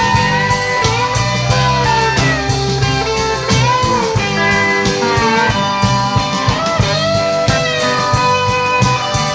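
Live band playing an instrumental break: a lead guitar line with bending, sliding notes over bass and a steady drum beat.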